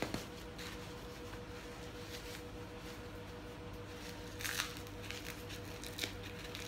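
Soft rustling of cloth as a reborn doll's bodysuit is pulled up and handled, with brief scrapes about four and a half and six seconds in, over a steady faint hum.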